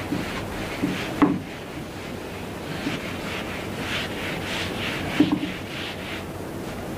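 A board being wiped clean: a run of rubbing strokes, about three a second, with a few short knocks.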